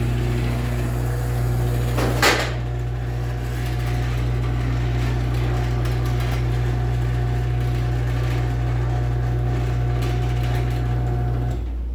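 LiftMaster 84505R belt-drive garage door opener running with the door disconnected: a steady motor hum as the trolley travels along the rail, with a single sharp knock about two seconds in. The motor stops shortly before the end.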